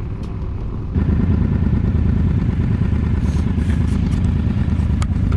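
Motorcycle engine running steadily, with a low rumble that jumps up in loudness about a second in and then holds.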